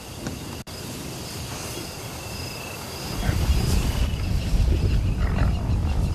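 Lions growling low over a buffalo carcass as a lioness contests a male for the meat, coming in about three seconds in and growing loud. Insects chirp steadily in the background.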